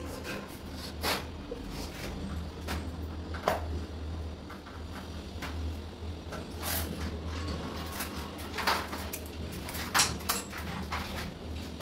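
Scattered light knocks, taps and clicks of hand work on a wooden door and its fittings, over a steady low hum.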